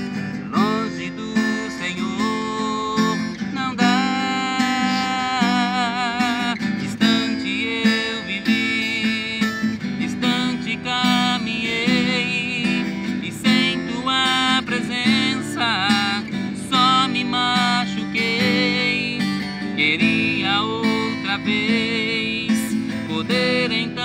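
A man singing in long, wavering held notes, accompanying himself on a strummed acoustic guitar.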